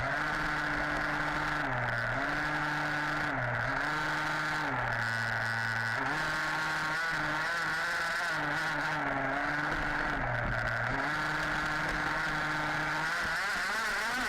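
Small two-stroke petrol engine of an HPI Baja 5B RC car running under load, its revs dropping and climbing again every second or two as it is driven around a track, heard close up.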